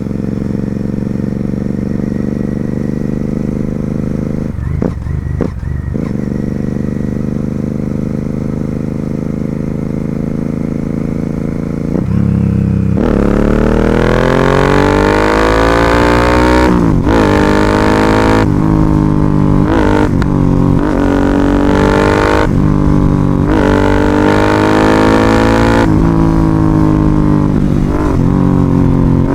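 Royal Enfield Continental GT 650's parallel-twin engine through an Ixil aftermarket exhaust, on the move. It holds a steady note that slowly rises, then about twelve seconds in it gets louder and pulls hard, revving up again and again with brief dips at the gear changes.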